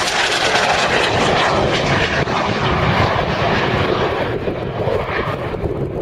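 A Eurofighter Typhoon's twin Eurojet EJ200 turbofans on a low-level pass: a loud, rushing jet noise that stays strong for the first few seconds, then starts to fade near the end as the jet flies away.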